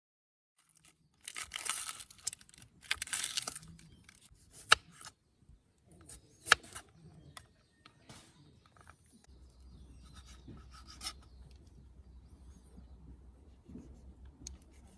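Handling noises: two bursts of rustling, tearing noise, then two sharp clicks and quieter fumbling.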